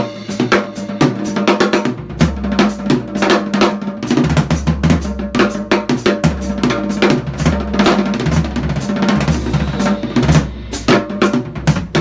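Acoustic drum kit played fast: a dense run of snare and tom strokes with bass drum kicks underneath.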